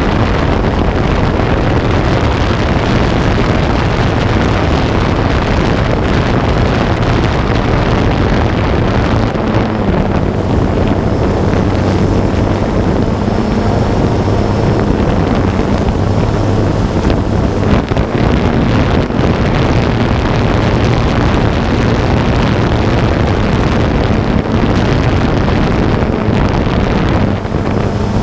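Camera drone's propellers running with a steady, wavering hum, with wind rushing over the microphone.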